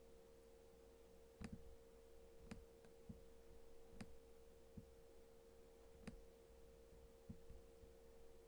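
Near silence with a steady faint hum and about seven scattered computer mouse clicks at irregular intervals.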